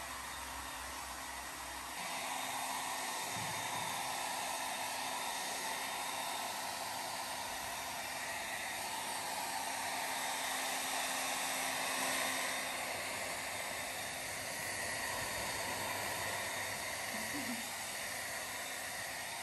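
Small handheld hair dryer blowing steadily, a continuous whooshing hiss with a faint hum. It gets louder about two seconds in.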